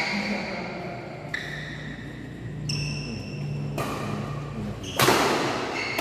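Badminton rally: rackets striking the shuttlecock with sharp hits about once a second, each with a brief ringing afterwards, the loudest about five seconds in.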